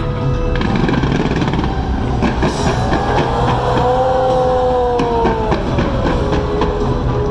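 A big aerial fireworks display: a dense run of bangs and crackles over a constant low rumble. Long gliding, whistle-like tones rise and fall from about a third of the way in until near the end.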